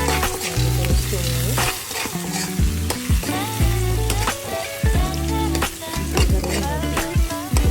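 Food frying and sizzling in a hot pan with steady hissing while it is stirred, over background music with a bass line and a beat.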